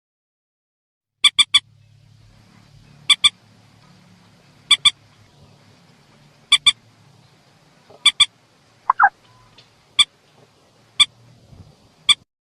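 Recorded mandar (rail) lure call: short, sharp calls of two or three quick notes, repeated about every one and a half to two seconds, over a faint low hum.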